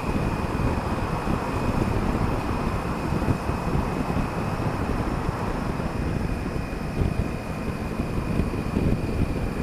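Steady wind rush on a helmet-mounted action camera's microphone while riding a Honda Africa Twin CRF1000L motorcycle at about 80 km/h, with the bike's running noise mixed in.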